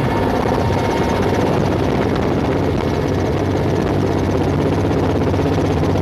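Helicopter rotor and engine running steadily, heard from inside the cabin, with a fast, even chop of the blades.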